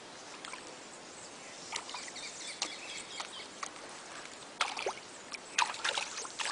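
Outdoor ambience: a steady hiss with scattered short rustles and crackles, which come louder and more often in the last two seconds.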